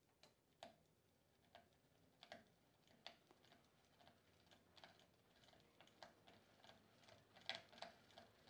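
Porsche 915 lightweight flywheel spinning up on its test bearing, pulled by a falling weight on a string. It gives faint ticks that start nearly a second apart and come quicker and quicker as it speeds up.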